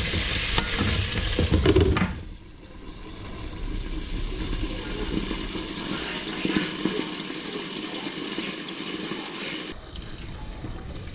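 Fish frying in oil in a lidded pan, a steady sizzling hiss just after the burner has been switched off. The sizzle drops abruptly about two seconds in, swells back, and drops again near the end.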